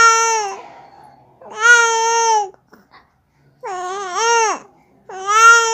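Baby vocalizing in four long, held vowel-like calls of about a second each, the third wavering in pitch and then dropping.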